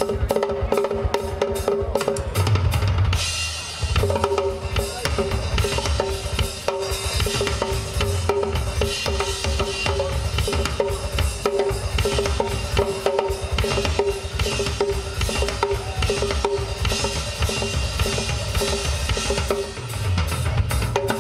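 Live drum solo on a rock kit: fast, continuous strokes on toms, snare and bass drum, with cymbals washing in from about three seconds in.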